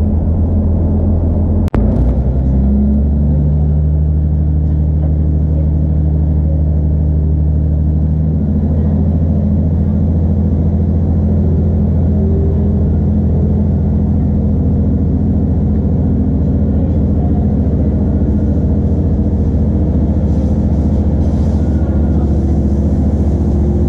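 Class 2600 diesel multiple unit's underfloor diesel engine running steadily under power, a low hum with rumble heard from inside the carriage. A sharp click with a brief dropout comes about two seconds in, after which the engine note shifts and settles.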